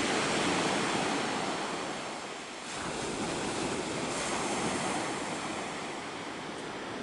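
Sea surf breaking and washing on a shingle beach, a steady rushing wash that eases off and builds again about two and a half seconds in.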